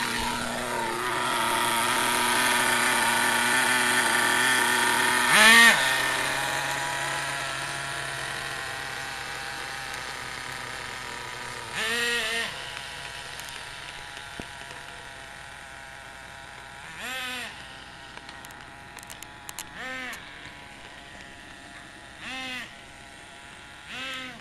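Redcat Tornado S30 1/8-scale nitro RC buggy's small engine running, with throttle blips that rise and fall in pitch: one loud rev about five seconds in, then short revs every few seconds as the sound gradually fades.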